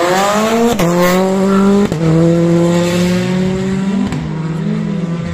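Rally car engine pulling hard on the stage: the pitch climbs and drops back with two quick upshifts, each marked by a sharp crack, about one and two seconds in, then holds high before falling and rising again near the end.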